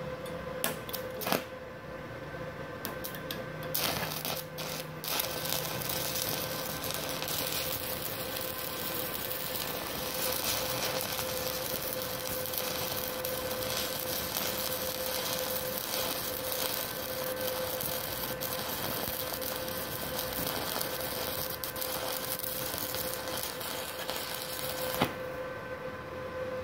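Stick (MMA) welding arc from a MultiPro MMA 120 IGBT inverter welder at 61 amps with a 2.6 mm electrode. A few sharp clicks come about a second in, then steady crackling for about twenty seconds that cuts off sharply near the end. A steady whine sits underneath; the machine runs the arc well on a 900-watt household supply.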